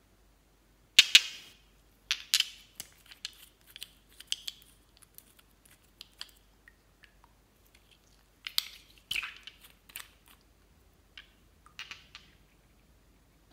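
Sharp clicks and clinks of small glass nail polish bottles being handled and knocked against each other, coming in uneven clusters. The loudest clicks are about a second in and again near nine seconds.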